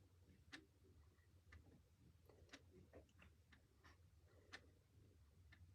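A clock ticking faintly, about once a second, in near silence over a low steady hum.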